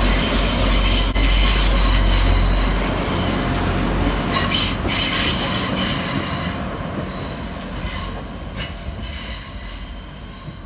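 A Transport for Wales diesel multiple unit passing close by: a loud low rumble of engine and wheels with a high wheel squeal and irregular clicks of wheels over rail joints and points, fading as the train draws away.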